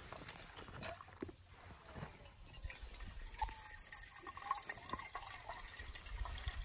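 Water poured from a bottle into a Trangia kettle, splashing and trickling as the kettle fills. It gets busier a couple of seconds in.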